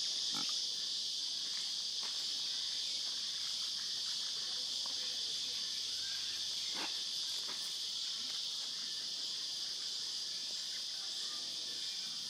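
A steady, high-pitched buzzing chorus of insects, with a couple of faint short clicks or splashes.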